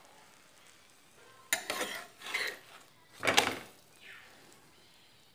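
Steel spatula scraping and clinking against an iron griddle pan as it is worked under a frying paratha: a sharp clink about a second and a half in, a few scrapes after it, and a louder scrape a little after three seconds.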